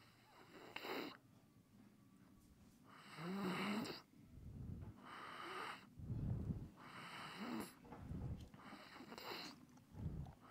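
A foal snoring: slow, regular breaths, hissy rasping ones about every two seconds alternating with low rumbling ones.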